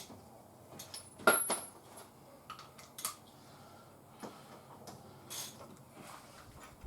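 Scattered metallic clinks and knocks of hand tools and wheel hardware being handled. The loudest is a sharp clank about a second in, with a short ring after it.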